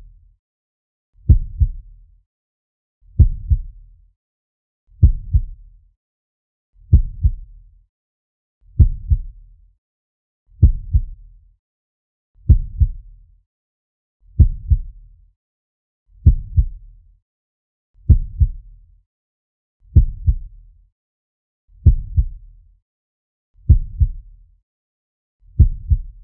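Slow heartbeat sound effect: a low double thump, lub-dub, repeating evenly about every two seconds with silence between beats.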